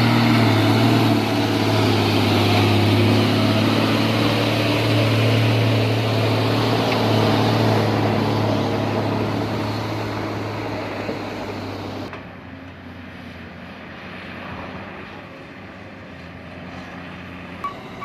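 Heavy machinery's diesel engine running with a steady, loud drone that slowly fades over about twelve seconds, then cuts to a quieter engine sound. A vehicle's reversing beeper starts just before the end.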